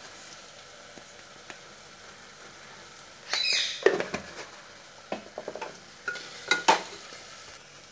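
Onion-tomato masala with chilli powder frying with a low, steady sizzle in a pressure cooker. A metal spoon stirs it, scraping and clinking against the pot side, loudest about three seconds in and again around six seconds.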